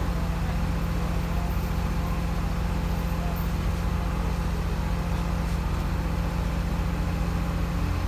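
Komatsu D51PX crawler bulldozer's diesel engine idling steadily, a constant low drone with an even firing pulse.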